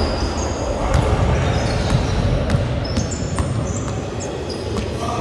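Basketballs bouncing on a sports-hall floor with repeated short, high-pitched squeaks of basketball shoes, all echoing in a large hall.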